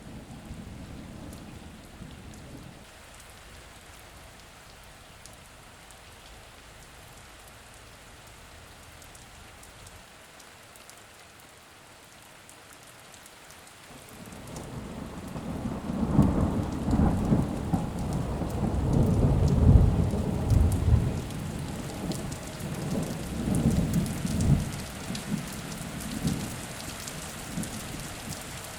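Steady rain falling, with a long roll of thunder building about halfway through, rumbling loudest for several seconds and then dying away.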